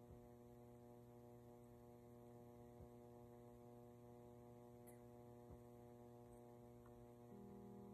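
Near silence with a faint steady hum made of several even tones, and a few faint ticks; the tones shift near the end.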